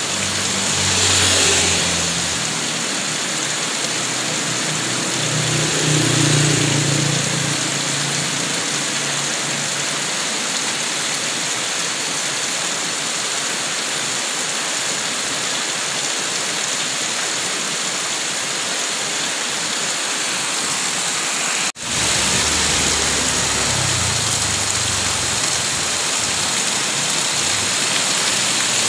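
Heavy rain falling steadily on roofs and a wet street, with water pouring off the roof edge. A low rumble swells twice early on, like vehicles passing on the wet road, and the sound breaks off for an instant about two-thirds of the way through.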